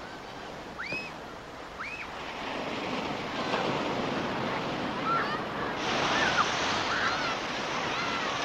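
Ocean surf breaking and washing onto a beach, a steady rushing that grows louder a few seconds in. A few short, high, arched cries sound over it in the first couple of seconds, with fainter chirps later.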